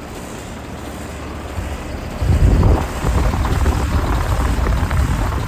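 Rheem 1.5-ton heat pump outdoor unit with a scroll compressor running, a steady low rumble with fan noise that grows louder about two seconds in.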